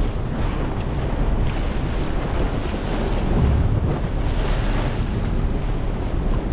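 Wind buffeting the microphone over the steady rush and splash of sea water along a moving boat's hull.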